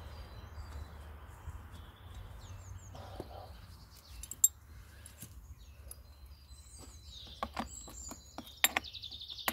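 Birds chirping in the background, busier near the end, over a steady low hum. Sharp clicks and knocks cut through, the loudest about halfway through and a quick run of them near the end.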